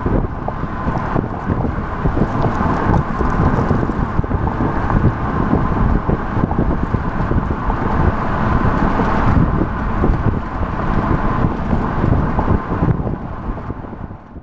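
Wind buffeting the microphone over a running car, with an uneven low rumble, fading out near the end.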